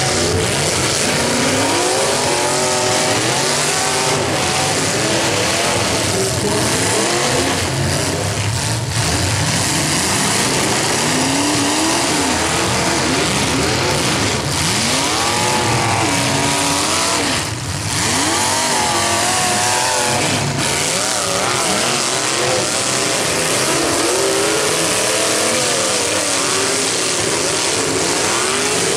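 Several demolition derby cars' engines revving together, loud and continuous, their pitches overlapping as each driver repeatedly speeds up and backs off.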